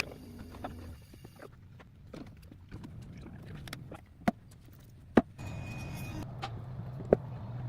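Construction work on wooden raised beds: a few sharp knocks spaced a second or so apart, and a steady low hum that comes in about five seconds in.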